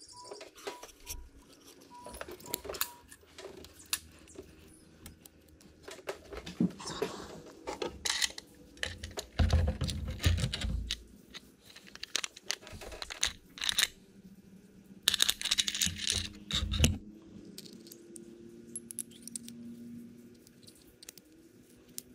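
Small metal parts clicking and clinking as the throttle-lever linkage of a Bosch P7100 injection pump's governor is handled and taken apart, with two louder spells of clattering and knocking in the middle.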